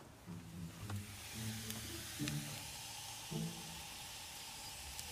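Small potatoes sautéing in a skillet, sizzling with a few sharp pops; the hiss builds about a second in and then holds steady.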